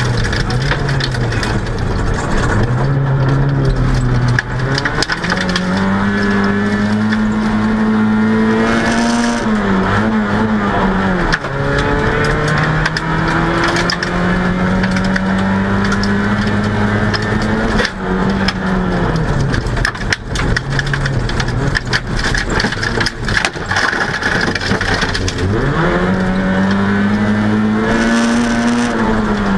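In-car sound of a VW Golf GTI 16V rally car's four-cylinder engine driven hard: the engine note climbs as it pulls through each gear and drops sharply at gearshifts and braking, several times over.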